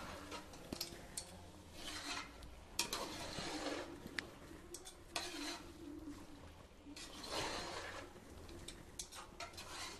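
Steel ladle stirring soaked raw biryani rice into chicken masala in an aluminium pressure cooker: soft scraping of the rice against the pot, with a few sharp clinks where the ladle strikes the pan.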